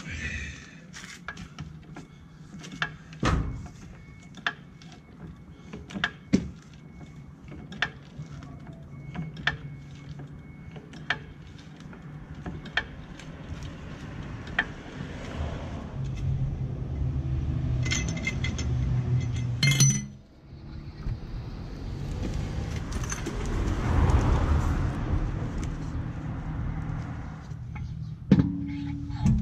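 Sharp metallic clicks and clinks, irregular, roughly one a second, from a NOS low-profile floor jack being pumped to raise the car. In the second half a louder rumble rises and falls, and a few loud knocks come near the end.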